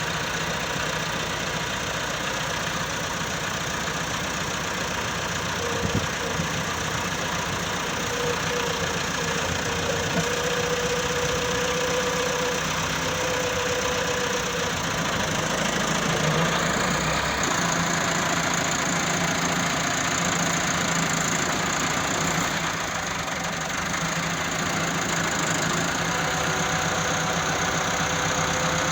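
Engines of road-construction machinery running steadily. A thin whine comes in for several seconds in the middle, and the sound shifts a little about halfway through.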